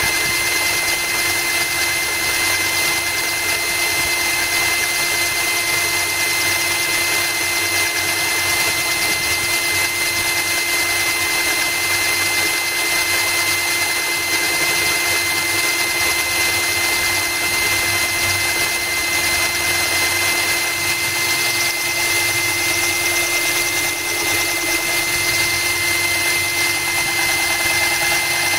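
Cordless drill running steadily with a diamond core bit grinding a hole through glass under a trickle of cooling water, a constant high-pitched whine.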